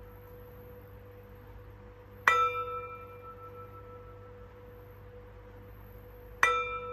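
Metal singing bowl struck twice with a wooden mallet, about two seconds in and again near the end. Each strike rings on as a clear tone with higher overtones and fades slowly, and each marks one of three deep breaths.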